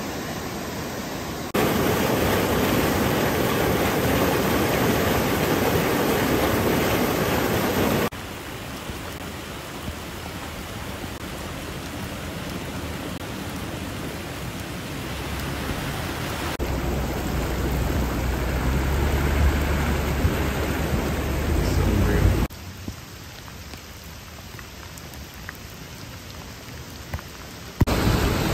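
Floodwater rushing and rain falling, a steady noisy rush that jumps abruptly in level several times. It is loudest for the first several seconds, and a low rumble builds past the middle and cuts off sharply.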